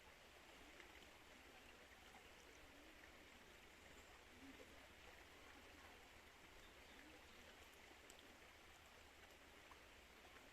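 Faint, steady rush of flowing river water, with small splashes scattered through it.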